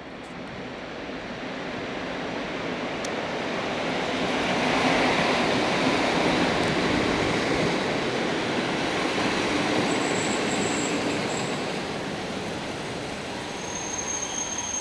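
An EP07 electric locomotive pulling an express train into a station and passing close by, then its passenger coaches rolling past with a steady rail noise that swells to its loudest about five seconds in. Thin high squeals near the end, typical of brakes as the train slows to stop.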